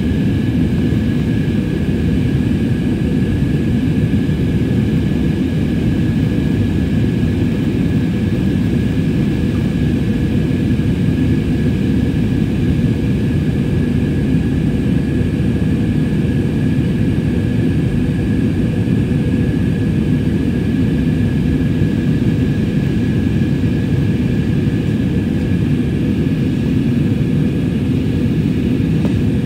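Jet airliner cabin noise during the climb after takeoff: a steady, even roar of engines and airflow, with a faint steady whine above it.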